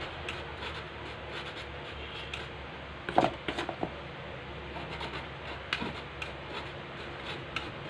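Flour being sifted through a handheld wire-mesh sieve and spooned from a stainless steel bowl: soft rubbing and scraping, with a few sharp clicks about three seconds in and again near six seconds.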